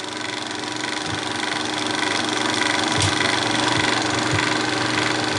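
Bell & Howell 1575A 16mm sound projector running: a steady mechanical whirring of its motor and film transport, growing slightly louder over the first couple of seconds.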